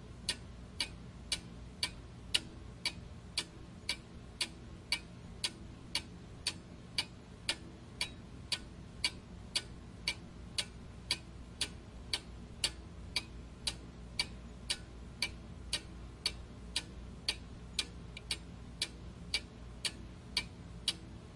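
Steady clock-like ticking, about two ticks a second, evenly spaced, over a low steady hum.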